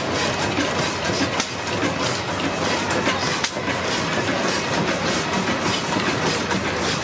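Blackstone horizontal single-cylinder stationary oil engine running steadily, with a dense mechanical clatter of frequent clicks.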